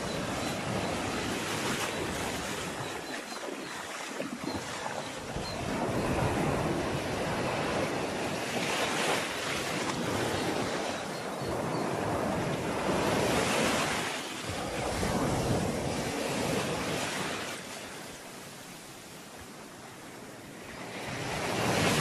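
Sea waves washing onto the shore, a continuous rush that swells and eases every few seconds, with a longer lull near the end before a final surge.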